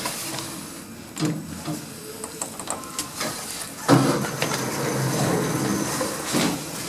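Otis Gen 2 lift's sliding doors moving. The motion starts with a sudden clunk about four seconds in and runs for about two and a half seconds.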